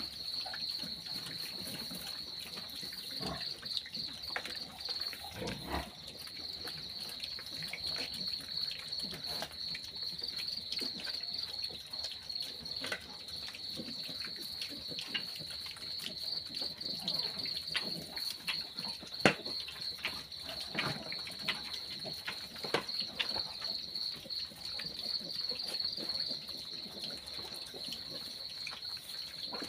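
Crickets trilling steadily in a high, pulsing chorus, over irregular small clicks and smacks of piglets eating from a feed bowl, with one sharper knock about two-thirds of the way through.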